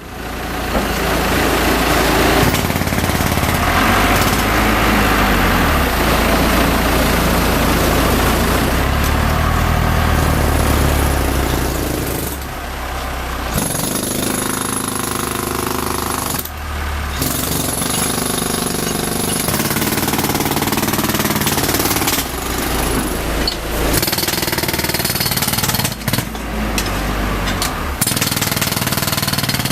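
Jackhammer hammering continuously, stopping briefly several times in the second half before starting again.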